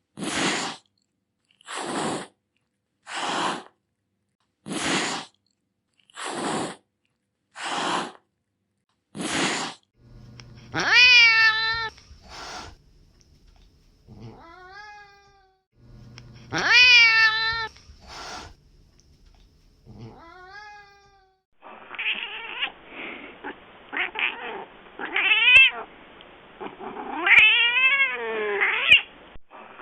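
Domestic cat hissing: seven short, sharp hisses about a second and a half apart. Then cats meowing and yowling in long, wavering calls that rise and fall in pitch, the last of them duller in tone.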